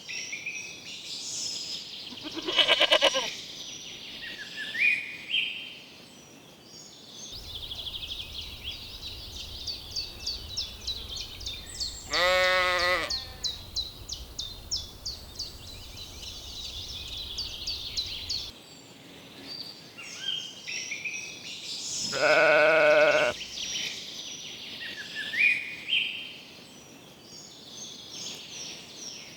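Lambs bleating three times, about ten seconds apart, the last call the longest, with birds singing steadily behind them.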